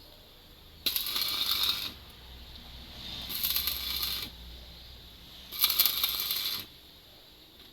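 Stick (arc) welding: the electrode's arc crackling and sizzling in three bursts of about a second each, struck and broken between them, while a run is laid joining a heavy iron bar to a thin pipe.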